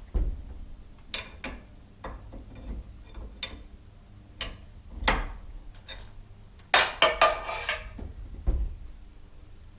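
Steel winding rods clinking and knocking against the winding cone of a garage door torsion spring as it is wound tighter, a turn at a time. Scattered sharp metal clicks, with a denser rattle of clinks about seven seconds in.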